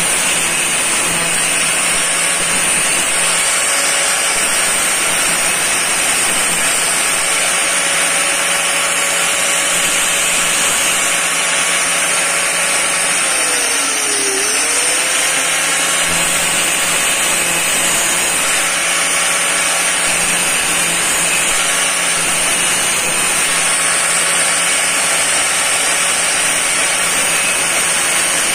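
Angle grinder running steadily while a bent steel rod is ground against its disc, its motor whine mixed with a grinding hiss. About halfway through, the motor's pitch dips sharply and comes back up.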